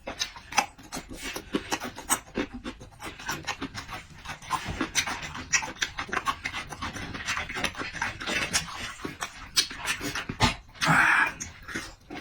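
A person eating up close: wet chewing and lip smacks in quick irregular clicks, with heavy breathing, and a loud breathy burst near the end.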